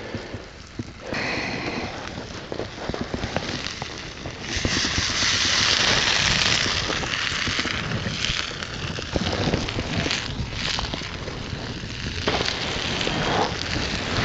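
Parboiled potatoes and onions sizzling and spitting in a skillet over an open wood fire, with many small crackles. The sizzle swells much louder about four seconds in for a couple of seconds, then settles back.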